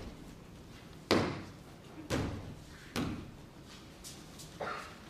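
Three heavy thuds about a second apart as bodies and bare feet strike the matted stage floor in jujutsu throws, each with a short echo. A fainter knock follows near the end.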